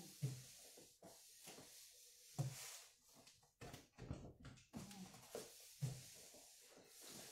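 Faint rustling and scattered soft knocks of items being handled and packed into a large cardboard box.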